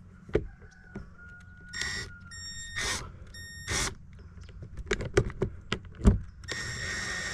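Sharp clicks and knocks of screws and a screwdriver being handled against a car's plastic door trim, with rustling in between. A high electronic beep sounds twice briefly in the middle, then comes on again and holds steady near the end.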